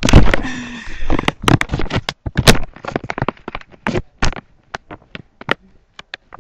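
Handling noise close to the microphone: rustling with a rapid run of sharp clicks and knocks, thinning after about two seconds to scattered single clicks.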